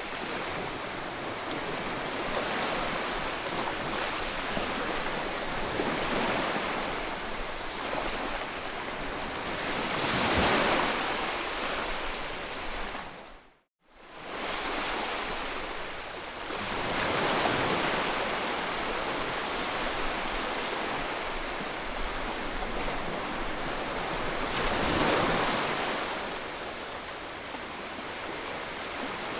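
Sea waves breaking and washing ashore, a steady rush that swells up with each wave about every seven seconds. About halfway through, the sound fades out to silence for a moment and comes back.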